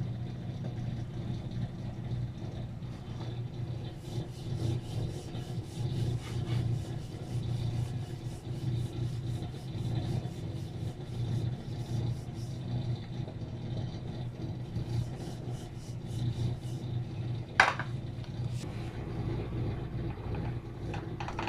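Wooden rolling pin rolling out stuffed paratha dough on a wooden board: repeated back-and-forth rubbing strokes over a steady low hum. A single sharp knock comes near the end.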